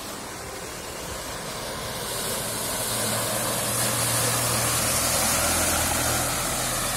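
Mahindra Bolero 4x4's engine running steadily as the SUV drives through deep mud, growing louder as it comes close, with a steady high hiss over it.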